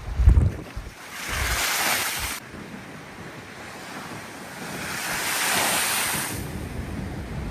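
Sea waves breaking and washing in twice, with strong wind buffeting the microphone, hardest at the start.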